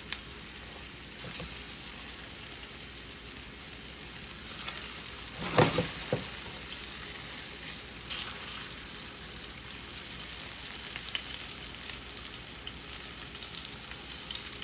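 Cornmeal-dredged chicken pieces shallow-frying in hot seed oil in a pan, a steady sizzle. About five and a half seconds in there is a brief, louder clatter.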